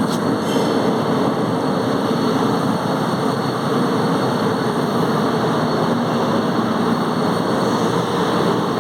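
Arc welding: the arc sizzles steadily and continuously.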